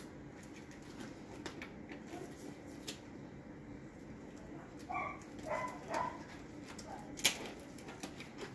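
Exam gloves being pulled on and worked over the hands: light rustles and clicks, three short squeaks about five to six seconds in, and a sharp snap a little after seven seconds.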